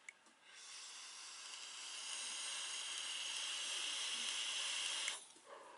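Electronic cigarette being drawn on in one long drag: a steady hiss of air pulled through the atomizer as the coil fires. It grows slowly louder and stops sharply after about four and a half seconds.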